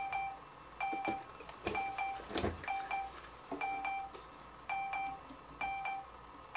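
Electronic machine beeping: short beeps in pairs, about one pair a second at a steady pitch, with a few soft clicks and a duller knock near the middle.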